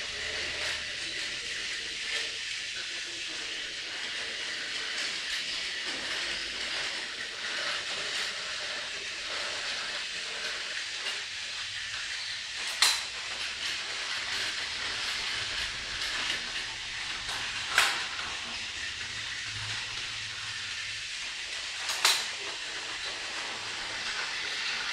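Two battery-powered Plarail toy trains running on plastic track: a steady high whir of their small motors and wheels. Three sharp clacks stand out, about halfway through, a few seconds later, and near the end.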